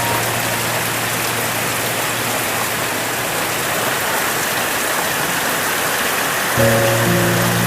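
Heavy rain pouring down steadily, an even hiss. About six and a half seconds in, background music with long held notes comes in over it.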